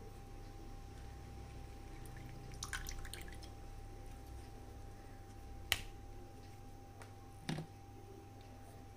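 Faint clicks and light taps from handling things on a kitchen tray as a lime half is picked up: a quick cluster of clicks about three seconds in, one sharp click in the middle and a dull tap a couple of seconds later, over a faint steady hum.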